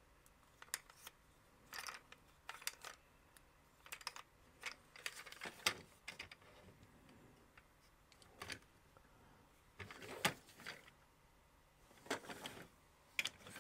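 Irregular light clicks and knocks of hard plastic toy parts being handled, as a plastic wheel is worked further onto a repaired axle post of a G.I. Joe Swampmasher toy vehicle.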